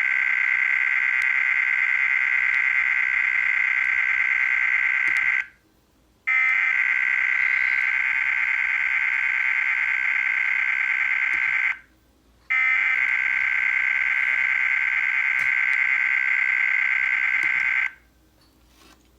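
Emergency Alert System SAME header: a harsh, buzzing digital data warble sent three times. Each burst lasts about six seconds, with just under a second of silence between them. The long bursts carry the coded severe thunderstorm watch (SVA) and its long list of county codes.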